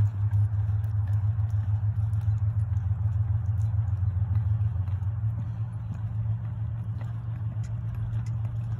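Horse loping on soft arena sand, its hoofbeats faint and muffled under a steady low hum.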